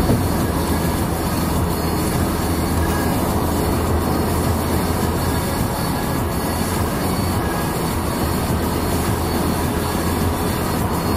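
Steady tyre and road noise with a low engine drone, heard inside the cabin of a Honda Civic FA1 (1.8-litre four-cylinder) cruising at highway speed, around 90 km/h.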